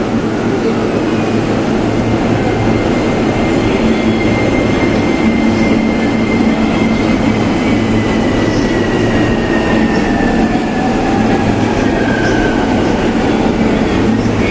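E231 series 1000 electric multiple unit accelerating away from a station. Its VVVF traction inverter gives a thin whine that glides slowly downward, over the steady rumble of traction motors and wheels on the rails. This is the inverter sound nicknamed the 'falling' (墜落) inverter.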